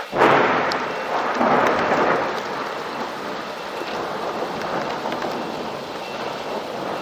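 Thunder from a nearby lightning strike: a sudden loud crack just after the start, a second swell about a second and a half in, then rumbling that slowly dies away over steady rain.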